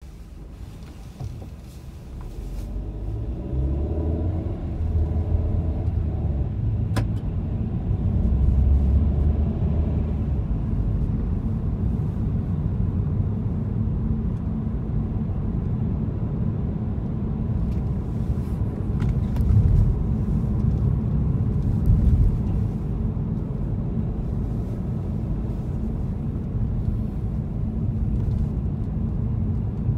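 Car driving: a low engine and road rumble. The engine note rises as the car pulls away over the first several seconds, then the rumble holds steady.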